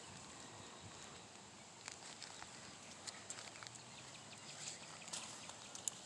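Faint outdoor garden ambience with scattered light clicks and crunches.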